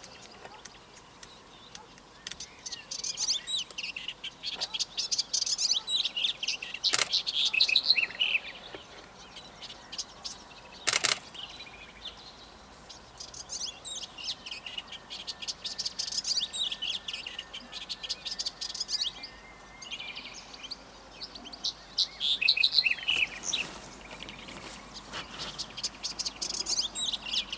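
Black-headed bunting singing its scratchy, jingling song in several bursts of quick high notes with short pauses between them. A sharp knock comes about eleven seconds in.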